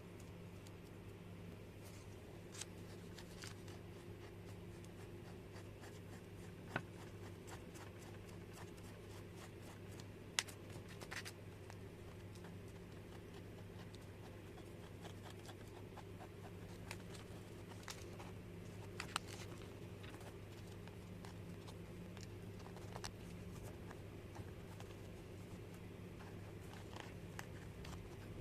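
Faint scratching and rubbing from handwork on a hydrolysed synthetic-leather wallet, with scattered small clicks and taps, a few sharper ones, over a steady low hum.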